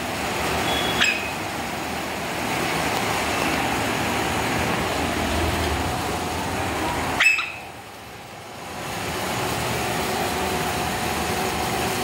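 Steady room noise with a faint hum. There is a short sharp click about a second in, and a louder one about seven seconds in, after which the background briefly drops away.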